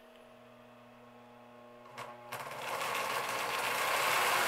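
HOGE 1000 tinplate streamliner locomotive's electric motor and gears buzzing as it runs a short way along the track. The buzz starts with a click about two seconds in, swells, then dies away with another click.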